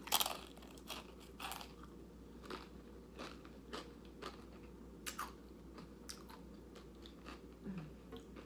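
A person biting into crunchy chips with dip and chewing: one loud crunching bite at the start, then irregular crunches as the mouthful is chewed.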